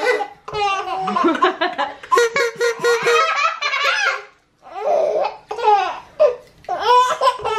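Baby belly-laughing in repeated bursts of giggles, with a short break about four and a half seconds in.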